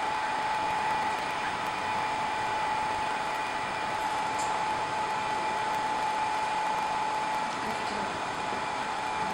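Hot-air blower of a WDS-650 BGA rework station running steadily while its upper heater heats a motherboard to remove a chip: an even rush of air with a steady whine.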